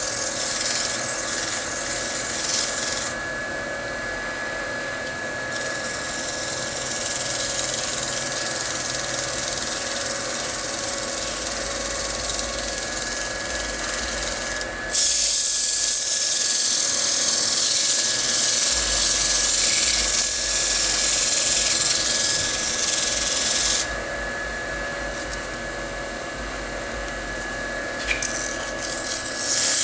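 Wood lathe running with a steady motor whine while sandpaper is held against the spinning wooden bowl, sanding it between coats of finish. The hiss of the sanding rises and falls as the pressure changes, loudest for a long stretch in the middle.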